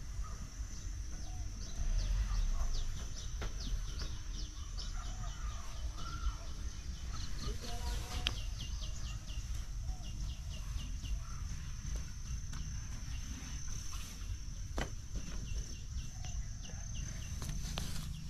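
Outdoor wildlife ambience: a steady high-pitched whine runs under short, rapid series of chirps, over a low rumble. A couple of sharp clicks stand out near the middle and later on.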